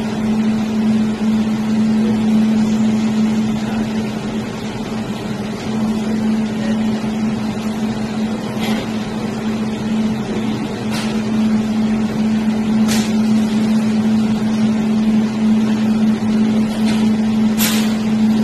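Jewelry laser welding machine running while it starts up after the laser is activated: a steady, loud hum with one constant low tone, with a few faint short ticks now and then.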